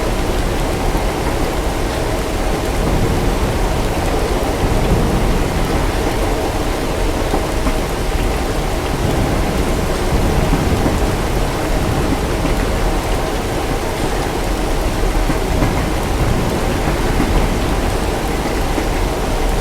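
Steady heavy rain with a continuous low rumble of distant thunder underneath, swelling slightly a few times.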